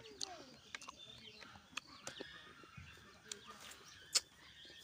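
Mouth sounds of hand-eating rice: scattered wet clicks and lip smacks while chewing, with a sharper smack about four seconds in as a fingerful of rice goes into the mouth. Birds chirp faintly in the background.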